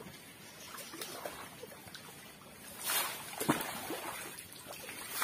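Water trickling and splashing in a shallow stream, louder from about three seconds in as water is poured from a container over a bather.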